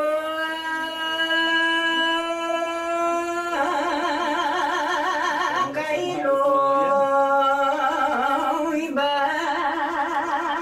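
A solo voice singing slow, drawn-out phrases with little or no accompaniment: a long straight-held note, then long notes with wide vibrato, with two short breaks for breath.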